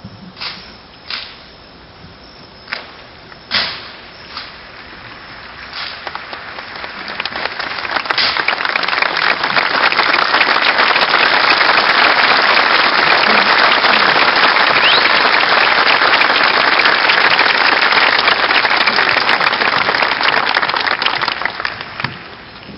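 A handful of sharp slaps and strikes from a Marine rifle drill platoon's drill movements, then the audience breaks into loud applause that builds over a couple of seconds, holds for about twelve seconds and dies away near the end.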